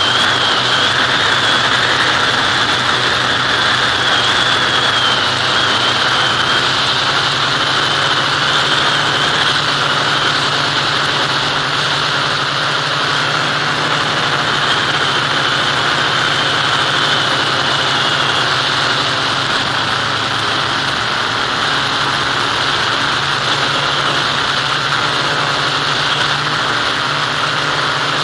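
FPV model aircraft's motor and propeller running steadily in flight, heard through the onboard camera: a constant drone with a high whine that wavers slightly in pitch, under a steady rush of air.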